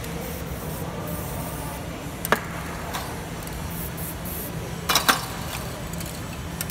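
Aerosol spray-paint can spraying in short hisses, with a sharp click about two seconds in and a close pair of clicks about five seconds in, over a steady low hum.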